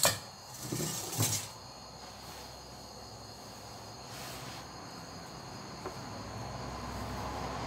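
A sharp metallic clink of tongs against a steel bowl, then a brief scrape and rustle as the bowl and paper are handled. Crickets chirp steadily behind it, and a low rumble slowly builds toward the end.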